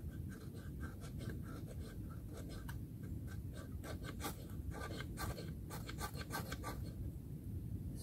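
Rapid, repeated scraping strokes, about four a second, from a hand tool worked against material on the ground. The strokes grow stronger past the middle and stop shortly before the end.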